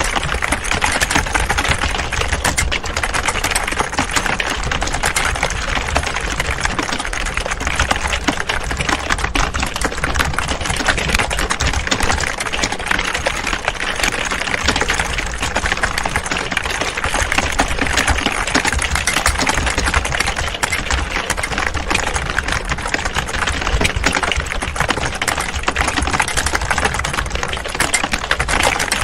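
Many people typing at once on computer keyboards: a dense, unbroken clatter of key clicks that never pauses.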